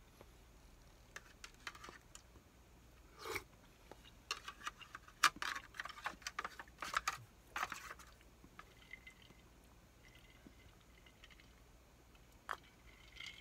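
A man chewing hot-pot food, with irregular short clicks and scrapes of chopsticks and a spoon against an aluminium foil tray, busiest in the middle few seconds.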